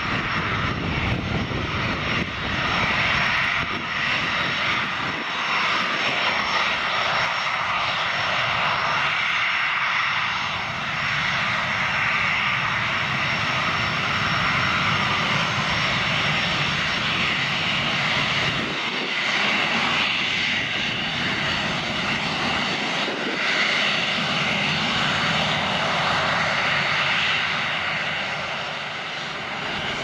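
Jet2 Boeing 737-300's CFM56-3 turbofans running at taxi power as the jet rolls past: a steady whine over a broad rush, with gusts of wind buffeting the microphone.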